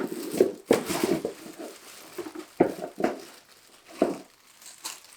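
Packaging rustling and crinkling, with several sharp knocks and clatters, as the parts of a liquid CPU cooler are handled and taken out of their box.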